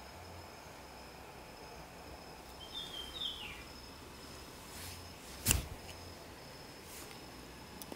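Quiet outdoor ambience with a steady high insect drone. A short bird chirp falling in pitch comes a little after three seconds in, and a single sharp knock about five and a half seconds in is the loudest sound.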